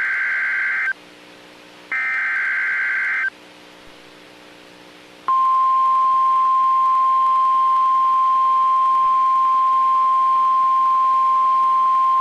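NOAA Weather Radio emergency alert: two short bursts of the SAME digital header's data tones, then, about five seconds in, the steady single-pitch warning alarm tone starts and holds. This alarm tone is the signal that a warning message, here a severe thunderstorm warning, is about to be broadcast.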